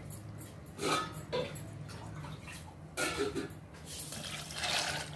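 Water being poured from a cup into a pressure cooker holding dry macaroni, in two pours: a short one about a second in and a longer one from about three seconds.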